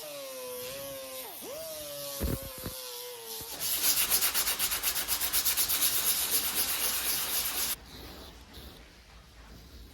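A power sander feathering the edge of a fiberglass laminate patch on a surfboard. The motor first runs with a wavering tone, then for about four seconds grinds loudly and grittily against the glass, and that stops abruptly about three-quarters of the way in.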